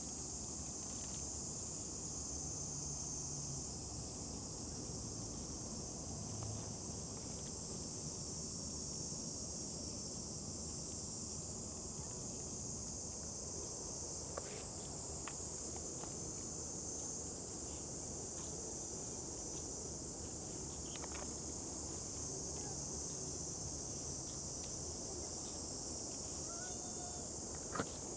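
Insect chorus, a steady high-pitched drone that goes on without a break, with a few faint ticks and a short sharp click near the end.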